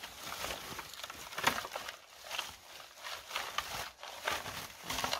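A hand-held berry-picking rake combing through bilberry bushes: irregular rustling of leaves and twigs with short crackles and snaps. The sharpest snap comes about a second and a half in.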